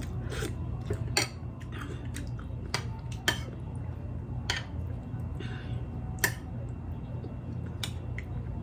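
Eating noises: chewing, with a spoon or other utensil clinking sharply against a bowl about six times, over a steady low hum.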